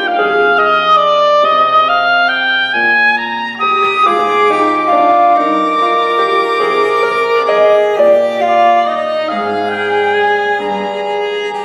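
Oboe, viola and piano playing a neo-Baroque chamber trio, with continuous melodic lines and some long held notes.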